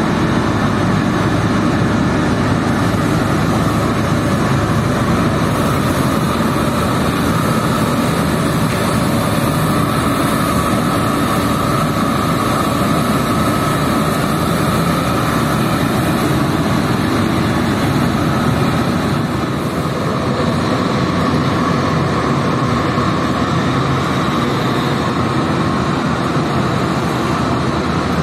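Carpet-washing machinery running: a loud, steady motor noise without a break.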